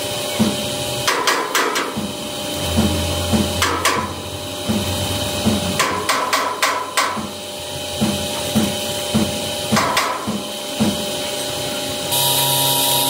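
Hammer blows on the truck's metal during repair, coming in bursts: a few quick strikes about a second in, one near four seconds, a run of five between six and seven seconds, and another near ten seconds, over a steady low beat.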